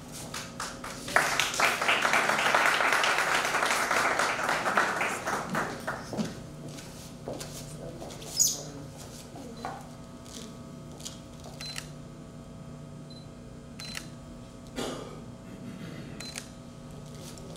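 Audience applauding for a few seconds: the clapping starts suddenly and dies away gradually. A few scattered clicks and knocks follow.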